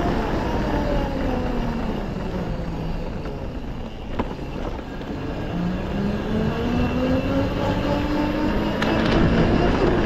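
Quad bike engine running while riding, its pitch falling over the first few seconds as it slows, then rising steadily as it speeds up again. A short knock sounds about four seconds in.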